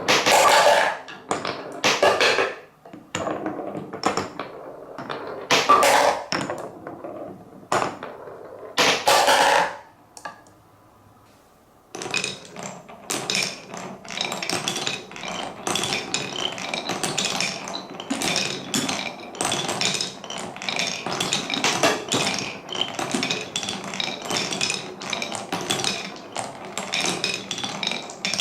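Marbles rolling and clacking through a wooden Cuboro marble run. A few loud knocks come in the first ten seconds, then a short lull, then a dense stream of quick clicks and rattles to the end.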